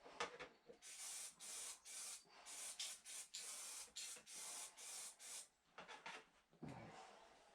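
Aerosol spray paint can hissing in a rapid series of short and longer bursts, about a dozen over four seconds, after a single knock at the start.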